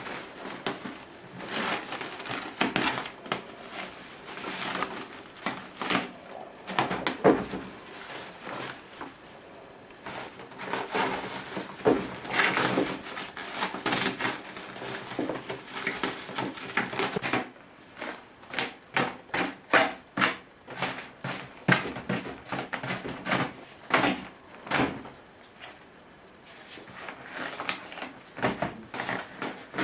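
Clear plastic wrapping being crinkled and torn off a parcel by hand: irregular crackles and rustles, with a couple of quieter pauses.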